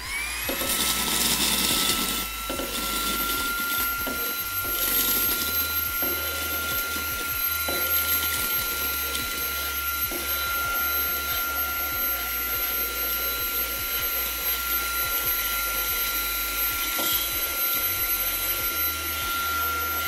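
Xiaomi Mi Vacuum Cleaner Mini handheld vacuum switching on with a quick rising whine, then running steadily with a high motor whine and rushing air through its long nozzle. Scattered light ticks as oat flakes and peppercorns are sucked up the tube.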